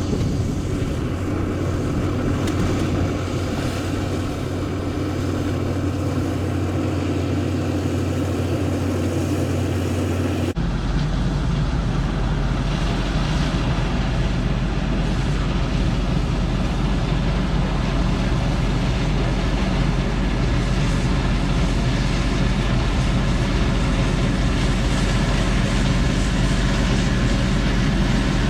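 Combine harvester running steadily while harvesting soybeans: a continuous engine and machinery drone. About ten seconds in, the sound switches abruptly to a deeper, steadier drone.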